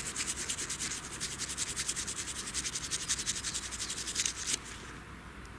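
Fast back-and-forth scrubbing of a crusty, freshly dug metal find to clean the dirt off it, an even rhythm of several strokes a second that stops about four and a half seconds in.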